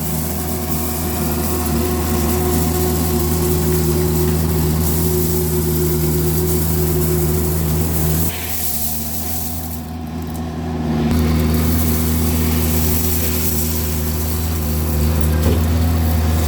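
Mini skid steer engine running steadily under load. About eight seconds in its note and level drop, and about three seconds later they come back up.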